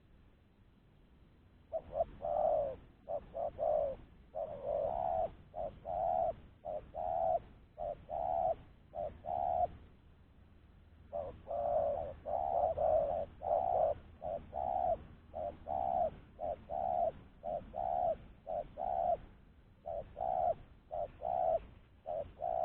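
Spotted dove cooing: two long bouts of repeated low coo notes, the first beginning about two seconds in and the second after a short pause near the middle.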